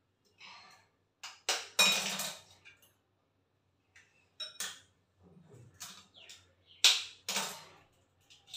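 Eggs being tapped and cracked on the rim of a glass mixing bowl: a series of sharp clinks and shell cracks, the loudest about two seconds in with a short glassy ring.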